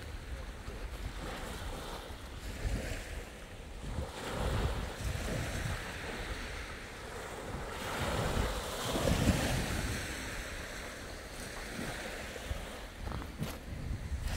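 Small waves breaking and washing up a sand beach, swelling louder about four seconds in and again around eight to nine seconds, with wind buffeting the microphone.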